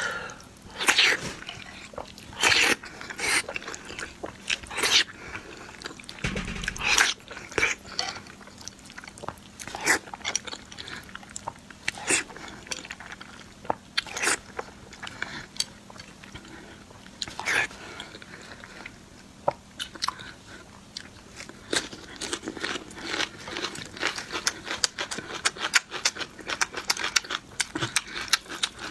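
Close-miked eating of noodles and fried eggs: irregular bites, mouth smacks and chewing, with a short low thump about six seconds in.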